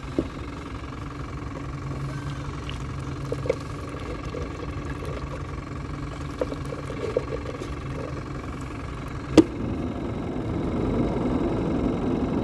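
A steady low mechanical hum runs under a few light clicks and knocks from a plastic minnow bucket and dip net being handled. One sharp snap about nine seconds in is the loudest sound.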